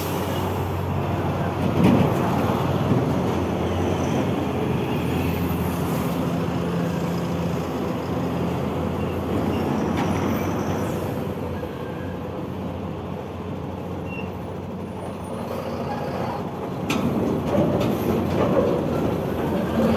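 Heavy diesel trucks passing close on a highway, a steady low engine hum under tyre and road noise, with a couple of brief sharp sounds. The traffic dips in the middle and swells again near the end as another truck comes up alongside.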